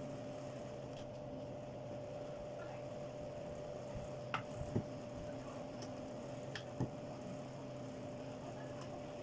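Light knocks and taps of a wooden rolling pin and dough on a round wooden rolling board as paratha dough is rolled out, over a steady low hum of room tone. The knocks are faint and scattered, a few of them in the middle.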